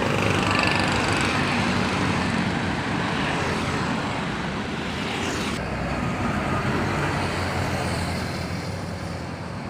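Fighter jet engine roar overhead, a loud steady rushing noise with a falling pitch streak about five seconds in.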